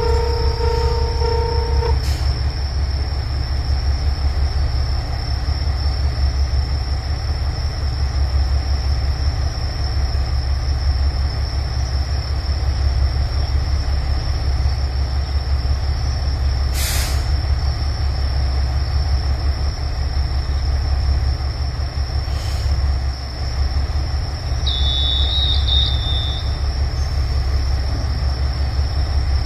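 Diesel railcars idling at a station, with a steady low engine rumble. A steady two-note tone stops with a click about two seconds in, and a brief hiss comes about seventeen seconds in.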